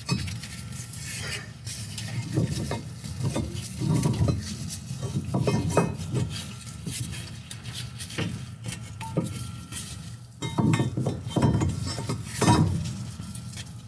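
Irregular metallic clanking and scraping as a 5.7L HEMI's cast-iron exhaust manifold is worked and jostled out past surrounding parts in the engine bay.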